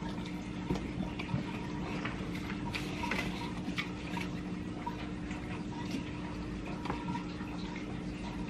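Wet chewing and lip-smacking of people eating sauced chicken wings, heard as many small irregular clicks and smacks over a steady low hum.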